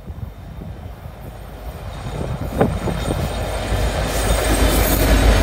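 Freight train pulled by two Canadian National EMD SD75I diesel locomotives approaching and drawing alongside, growing steadily louder. The engines' low rumble builds under rising wheel-on-rail noise, with a single knock about halfway through.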